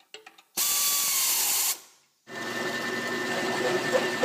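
A few light metal clinks, then a loud hissing burst lasting about a second, then a machine spindle starts and runs steadily with the cutter in the hole of a worn plow linkage yoke being bored out to a larger pin size.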